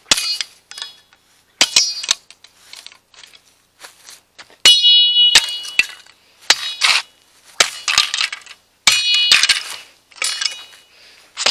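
About a dozen hard, irregular blows of a metal chopping tool on the remains of a toy RC car, many of them leaving a short metallic ring.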